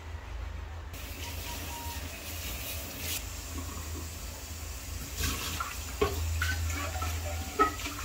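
Kitchen tap running into a stainless steel sink as a pan is rinsed under it, the water starting about a second in. Several clinks and knocks of the pan against the sink come in the second half.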